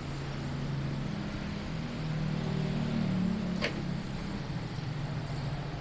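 A low, steady motor hum, with one short sharp click about three and a half seconds in.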